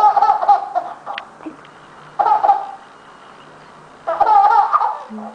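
Baby laughing in three short bouts of pulsing giggles, each under a second long, with pauses between them.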